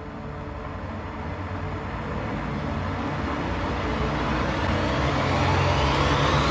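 Soundtrack build-up: a hissing noise sweep rising in pitch and growing steadily louder over a low held bass drone.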